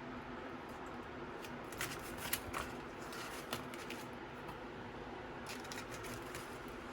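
Faint handling noises, paper and cardboard packaging rustling with a few light clicks, over a steady low background hum.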